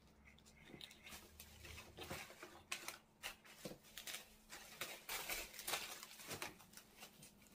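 Faint, scattered crackles and taps of plastic packaging and cardboard box flaps being handled during an unboxing, a little busier about five to six seconds in as plastic wrap is pulled from the box.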